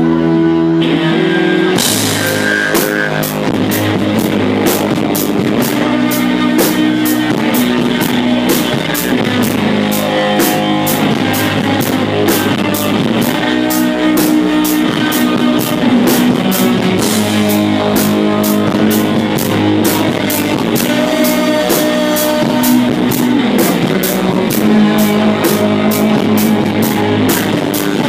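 Live rock band playing loud, with electric guitar and drum kit. After a sparser opening of held low notes, the full band comes in about two seconds in, with a steady, fast cymbal beat.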